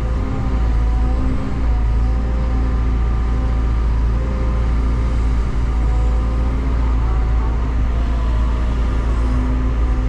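Excavator's diesel engine running steadily while digging, a deep rumble with a steady engine hum over it.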